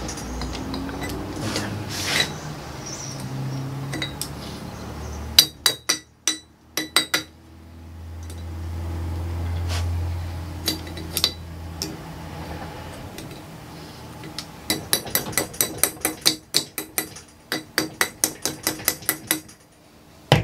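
Metal clicks and clinks from pliers working at a propeller hub on a steel shaft during assembly: a cluster of sharp clicks about five seconds in, then a quick run of clicks, several a second, over the last few seconds. A low hum swells and fades in the middle.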